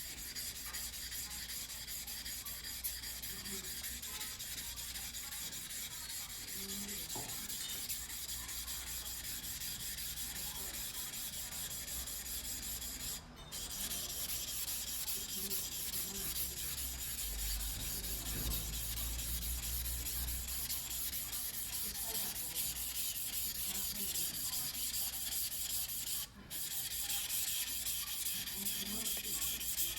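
Yanagiba sashimi knife of White No. 2 carbon steel being hand-sharpened on a wet whetstone: a steady rapid back-and-forth scraping of the blade on the stone, which stops briefly twice.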